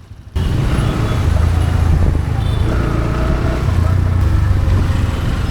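Road-riding noise on a vehicle-mounted action camera's microphone: a heavy, steady wind-and-engine rumble with traffic around it. It starts abruptly about a third of a second in.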